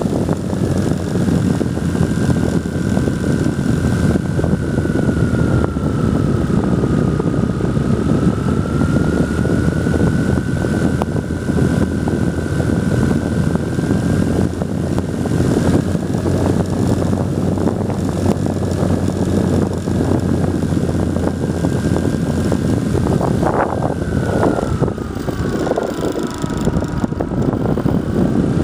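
E-flite 380 brushless outrunner motor on a GWS Slow Stick RC plane in flight, heard from the onboard camera: a steady whine that drifts in pitch with throttle, sagging lower twice and rising back, over a heavy rush of propeller and airflow noise.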